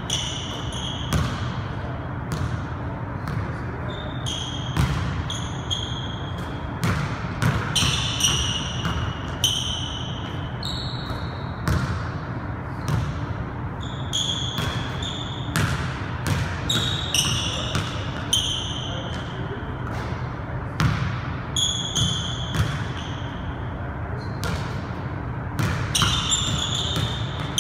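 A basketball bouncing and being handled on a hardwood gym floor, a sharp thud every second or so. Between the thuds come frequent short high-pitched squeaks of basketball shoes on the hardwood, all over a steady low hum.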